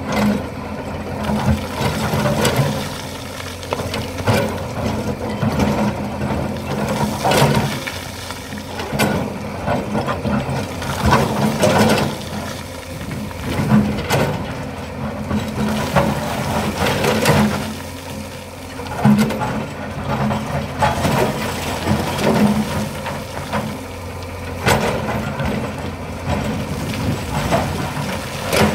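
Excavator's diesel engine running steadily under load, with repeated clanks and knocks from the machine working, every second or two.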